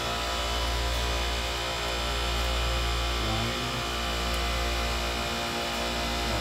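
Centralized refrigeration rack system running: a steady low machine hum with many even tones layered over it.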